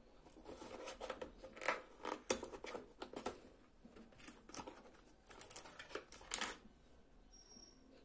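Cardboard carton being opened by hand: quick scrapes, rustles and clicks of the flaps and packaging, which die down about six and a half seconds in.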